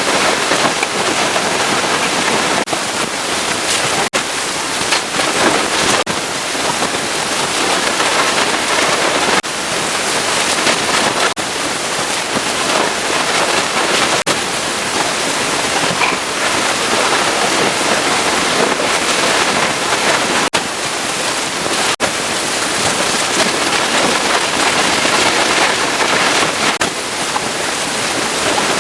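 Pressure washer spraying water onto a vehicle's surfaces: a loud, steady hiss of water spray, broken by brief gaps every few seconds.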